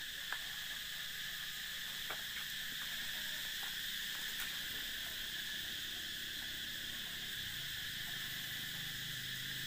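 Steady, high-pitched insect chorus droning without a break, with a few faint clicks.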